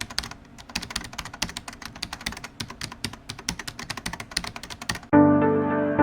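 Rapid, irregular key clicks of typing on a keyboard, several a second. About five seconds in, the typing stops and music with sustained keyboard chords starts abruptly.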